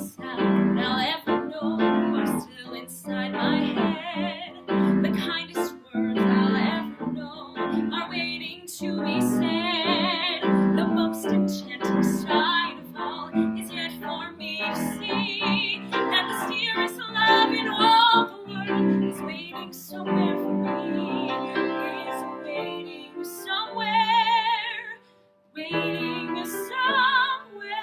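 A woman singing a slow ballad with a wide vibrato on her held notes, over piano accompaniment.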